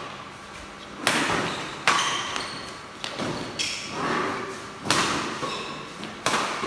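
Billiard balls clacking: several sharp, hard knocks spaced about a second apart, each with a brief ring.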